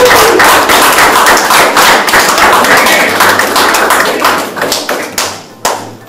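Audience applauding, many hands clapping, thinning out and fading in the last second.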